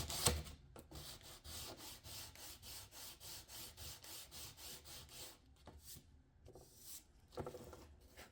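Wood trim being sanded by hand with quick back-and-forth strokes, about three a second. The sanding stops about five seconds in, and a few separate handling sounds follow.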